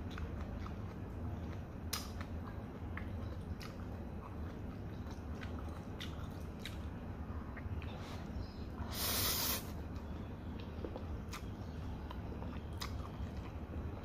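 A person eating fried noodles: chewing with small wet mouth clicks, and one loud slurp of noodles a little past the middle, lasting about half a second.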